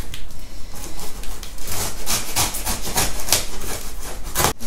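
Small knife sawing through packing tape and cardboard on a shipping box: a run of short scraping strokes, thickest in the middle.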